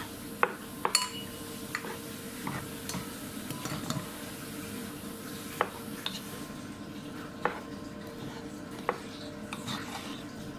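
Food being stirred in a pan: a metal utensil clinks and knocks against the pan about ten times, a few strikes ringing briefly, over a steady sizzle that quietens about six and a half seconds in.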